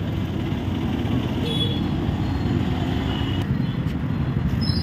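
Steady low rumble of roadside traffic noise, with faint voices in the background.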